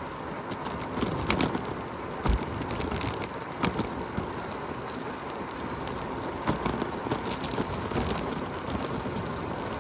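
Steady rush of wind over the microphone and tyre noise on wet pavement while riding a Segway electric scooter, broken by a few sharp knocks.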